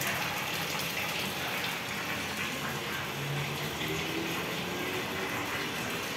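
Steady rush of water pouring in a stream from a tap into a large steel dough-mixer bowl full of wet dough.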